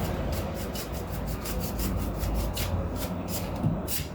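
Brush bristles sweeping dust off the back of a graphics card in quick repeated strokes, several a second.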